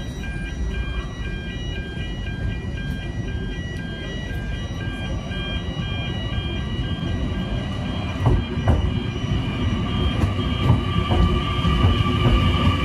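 Level crossing warning bells ringing in a steady repeating pattern. From about eight seconds in, a passing train joins them: its wheels click sharply over the rails and its rumble and hum grow louder.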